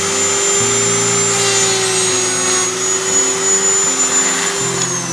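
Dremel rotary tool running at steady high speed with a larger burr, boring into a thin wooden lure body; near the end it is switched off and its whine falls in pitch as it spins down.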